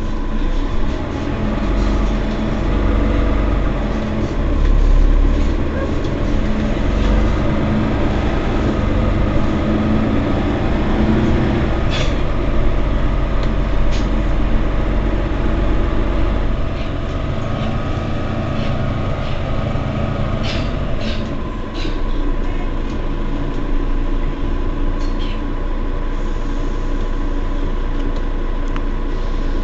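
Mercedes-Benz Citaro facelift city bus engine running with a steady low hum. A few sharp clicks and knocks come over it about halfway through and again near the end.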